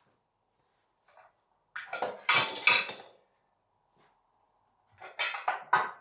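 Heavy metal door closers clanking and clattering against each other as they are handled and stacked away, in two bursts: one about two seconds in and another near the end.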